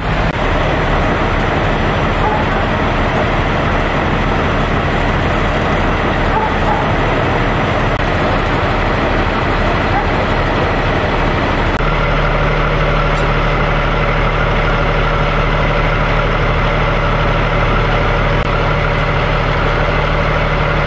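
Fire engine's diesel engine running steadily at idle, a constant low hum and rumble; its tone shifts abruptly about twelve seconds in.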